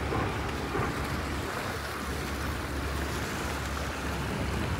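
Steady rush of a shallow, rippling river, with wind buffeting the microphone in a low, fluttering rumble.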